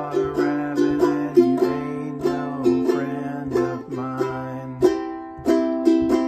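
Ukulele strummed with the fingernails in a steady rhythm, about three strokes a second, playing chords. A man's low voice sings held notes along with it, changing pitch about five seconds in.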